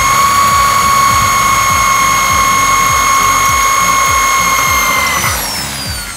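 Cordless drill boring out a rivet in a motorcycle clutch housing's gear, its motor running with a steady high whine. About five seconds in the trigger is released and the whine falls away as the motor spins down.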